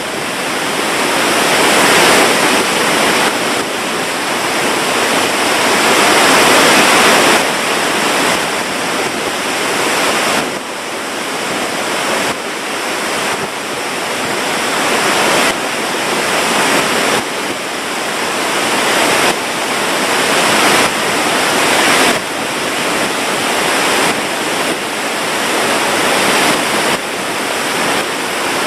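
Trchan waterfall's falling water rushing loudly and steadily, its loudness swelling and dropping back every second or two.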